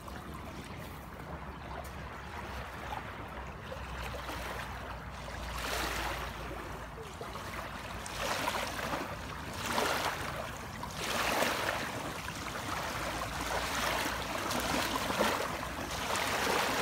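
Small river waves lapping and splashing at the shore, coming in repeated swells every second or two and growing louder about five seconds in.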